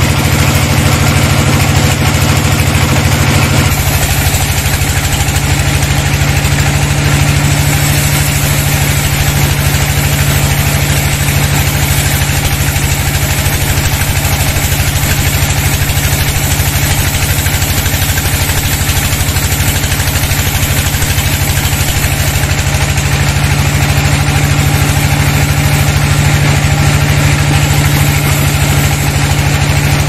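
Horizontal band sawmill running with its band blade sawing lengthwise through a teak log: a loud, steady machine drone under the hiss of the blade cutting the wood. The drone shifts slightly in pitch about four seconds in, then holds steady.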